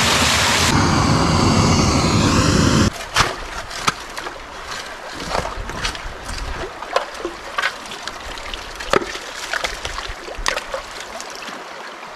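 Mountain brook water rushing loud and close, which cuts off suddenly about three seconds in to a quieter trickle with scattered small splashes and knocks.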